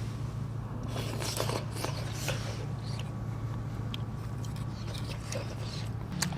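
Eating sounds from a bowl of perilla-seed sujebi: chewing and slurping with small sharp clicks, thickest in the first few seconds, over a steady low hum.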